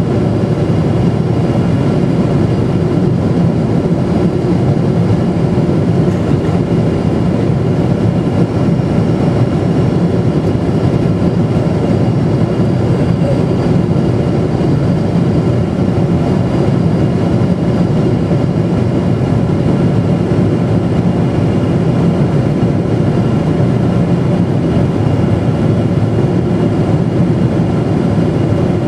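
Boeing 777-200 cabin noise on approach: a steady rumble and rush of the engines and airflow heard from a seat beside the engine, with faint steady hums above it.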